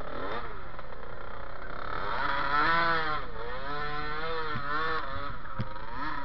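Dirt bike engine being revved in repeated blips, its pitch climbing and falling back with each one.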